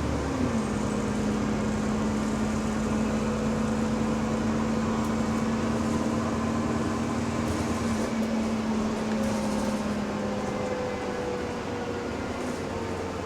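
Bus drivetrain heard from inside while on the move, with a steady whine that drops in pitch just after the start and eases lower near the end. This is the faint odd noise that the uploader puts down to the differential.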